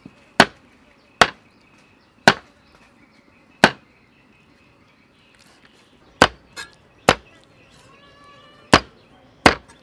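A steel cleaver chops cooked pig intestine on a wooden chopping block: about nine sharp single chops at uneven intervals, with a pause of a couple of seconds in the middle.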